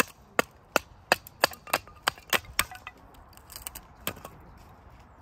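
A quick series of sharp knocks, about three a second and getting slightly faster, then a few softer, scattered knocks a little later.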